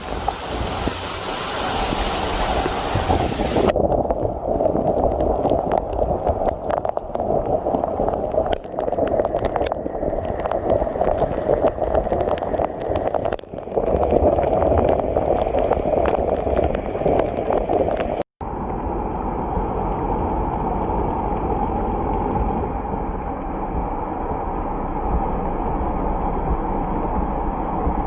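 Floodwater rushing and rain falling: a steady, loud noise with no clear tones, made of separate clips that change abruptly about four seconds in and again near eighteen seconds.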